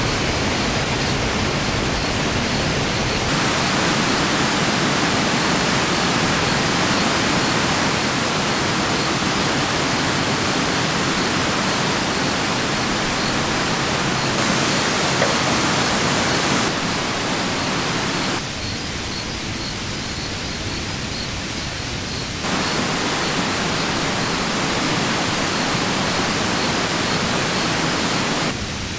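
Steady rain falling, an even wash of noise that changes abruptly in level and tone several times.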